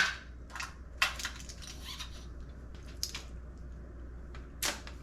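Scattered clicks and knocks of small metal parts and tools being handled while routing brake hardware on a dirt bike, a few separate strikes with gaps between them, over a faint steady low hum.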